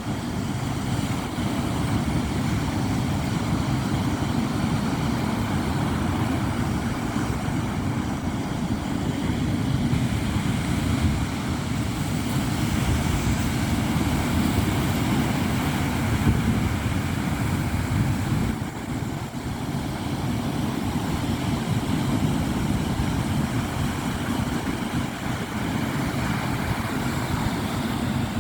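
Sea waves washing on the shore in a steady, continuous rush, heaviest in the low range, with no distinct breaks between waves.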